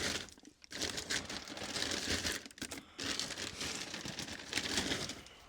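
Crinkling and rustling handling noise in two long stretches of about two seconds each, with short pauses between.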